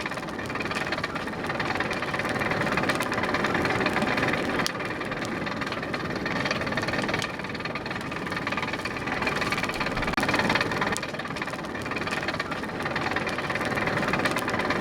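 Homemade forge blower, a fan turned by a belt from a bicycle wheel bearing, running steadily with a dense mechanical whirr whose loudness rises and falls a little. It is blowing air into the blacksmith's fire to keep it burning hot.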